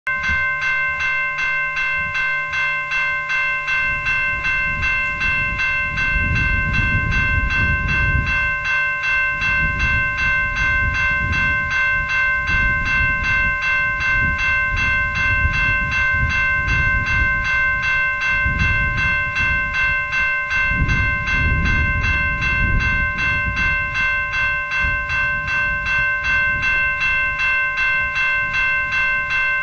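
Railway level-crossing warning bell ringing in quick, even strokes, a set of steady ringing tones pulsing throughout. Beneath it a low rumble swells and fades from about four seconds in until near the end.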